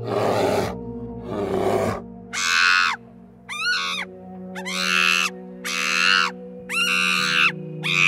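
Low, breathy black bear grunts for the first couple of seconds, then Barbary macaques giving about five high calls, each rising and falling in pitch, roughly one a second. A steady background music drone runs underneath.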